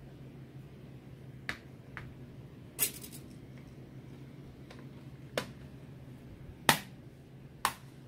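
Plastic snap clips of an Asus X441BA laptop's top case clicking into the base as it is pressed down along the edges: about half a dozen sharp clicks at uneven intervals, the loudest near the end, over a low steady hum.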